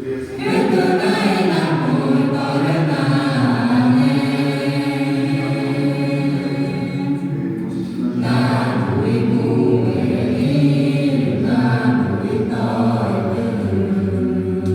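A group of voices chanting together in long held notes, with a fresh phrase starting about eight seconds in.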